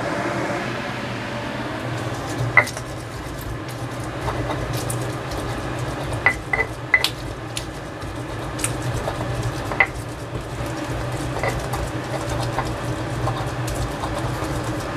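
Stone pestle (ulekan) crushing and grinding chillies, shallots and garlic in a stone cobek, with irregular sharp clacks of stone on stone starting about two seconds in. A steady low hum runs underneath.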